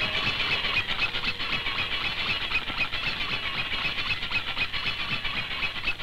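Mechanical tin toys running: a fast, steady whirring clatter of small motors and gears.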